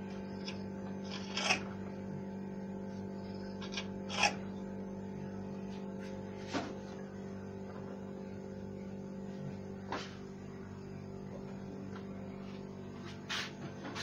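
Knife cutting through roti and knocking against the plate a handful of times, short sharp knocks spread out, over a steady low hum.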